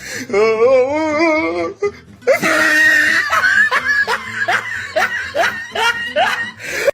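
A voice wavering up and down in pitch for about two seconds, then a run of short, rising bursts of laughter, about two a second.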